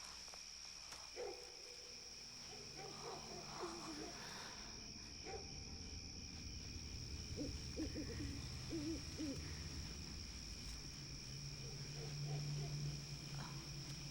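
Faint night ambience: a steady high drone of crickets, with short wavering low calls now and then, owl-like hoots, and a low hum that swells near the end.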